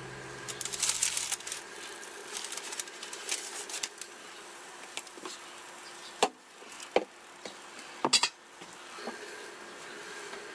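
Light clicking and rustling as a burger is lifted off the baking paper on the tray of a Sharp Healsio steam oven, followed by three sharp knocks later on, over a faint steady hum.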